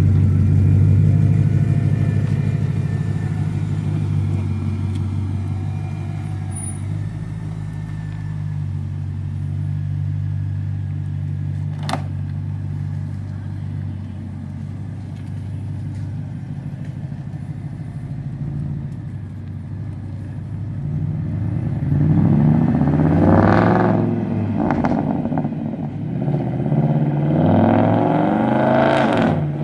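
BMW 645Ci's 4.4-litre V8 idling steadily, with a sharp click about twelve seconds in, then revving up in two rising surges as the car drives off, with some exhaust crackles between the pulls.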